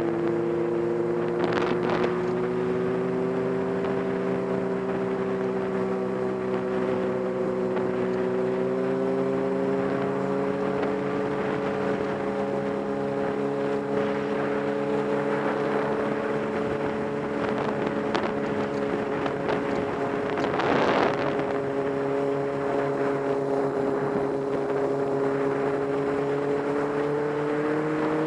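Motorcycle engine running steadily at cruising speed, its pitch drifting slightly up and down with the throttle and rising a little near the end, over wind and road noise. A brief loud whoosh comes about twenty seconds in.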